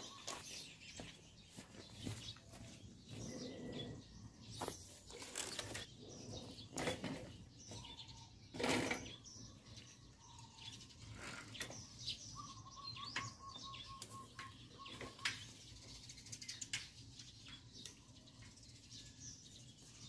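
Faint outdoor ambience with scattered bird chirps and a short trill, over irregular light clicks and knocks; the loudest knock comes about nine seconds in.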